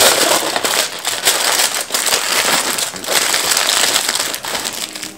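Aluminium foil crinkling as it is folded and pressed tight by hand around a wrapped pad, a dense run of sharp crackles.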